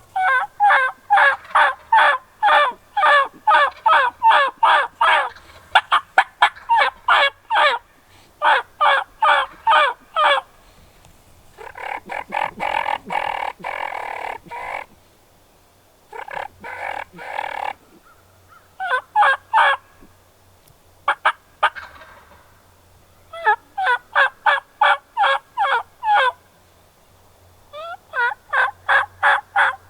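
Turkey yelping: fast runs of sharp, repeated yelps in groups of a few seconds with short pauses between them, and a longer, rougher call about twelve seconds in.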